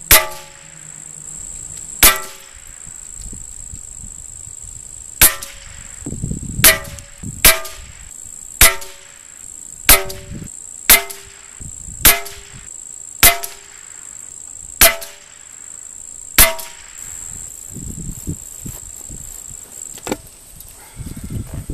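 About a dozen .22 rimfire rifle shots at irregular intervals, each bullet striking a metal tin that rings briefly after every hit. Near the end the tin is picked up and handled.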